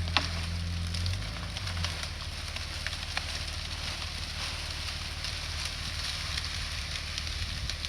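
A truck's engine pulling on a large old rose bush, its low hum fading after about a second, while the bush's canes and roots crackle and snap as it is torn out of the ground.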